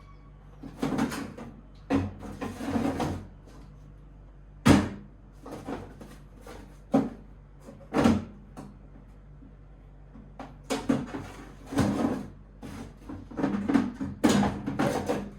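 Food containers and bags being handled and packed into a freezer: plastic rustling and several sharp knocks of containers and drawers.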